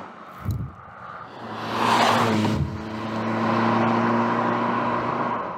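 BMW E30 M3 pickup's four-cylinder engine driving past: a low thump about half a second in, the engine note swelling about two seconds in as the car passes, then holding a steady note.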